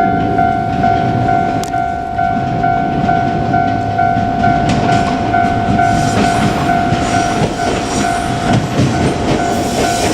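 Japanese level-crossing warning bell ringing in fast, even dings, over the rumble of a passing JR Kyushu 817 series electric train. From about halfway in, the wheels clatter over the rail joints.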